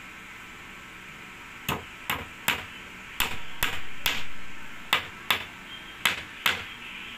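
Claw hammer driving a nail into a wooden strip: about ten sharp taps, roughly two a second, starting nearly two seconds in.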